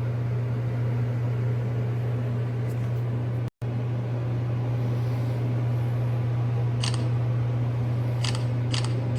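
Steady low electrical or mechanical hum, with a brief dropout about a third of the way in and a few short clicks near the end.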